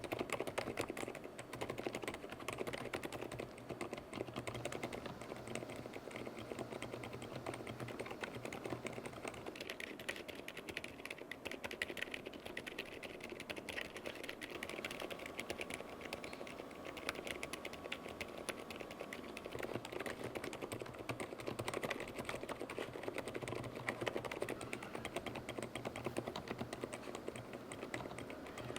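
Continuous typing on a mechanical keyboard fitted with fully lubricated Outemu Lime V3 silent tactile switches: a steady run of soft, muted keystrokes.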